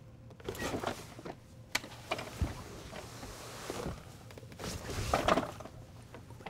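Scattered thumps and rustling of people moving against a fabric office cubicle partition, with a sharp thump about two and a half seconds in and a louder, scuffling rustle around five seconds in.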